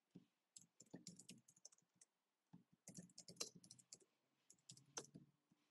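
Faint typing on a computer keyboard: quick runs of keystrokes in three bursts with short pauses between.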